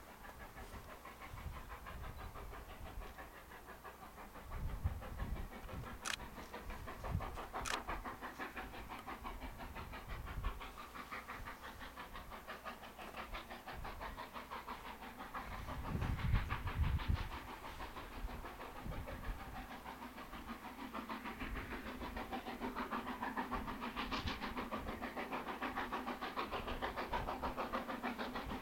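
Harz narrow-gauge steam locomotive working toward the listener, its rapid rhythmic exhaust chuffs growing steadily louder as it draws nearer, with a few low rumbles, the strongest about sixteen seconds in.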